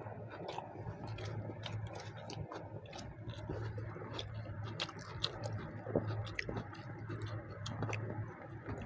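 Eating sounds: chewing and small wet clicks and smacks from people eating chicken curry and rice, coming at an uneven pace, over a steady low hum.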